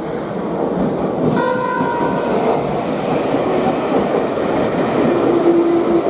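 Electric commuter train running along the platform with a steady rumble and wheels clicking over the rail joints. A short tone sounds about a second and a half in, and a steady lower hum comes in near the end.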